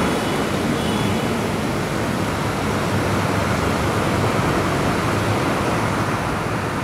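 Steady, even rushing background noise of an open-air bus yard, with no distinct events.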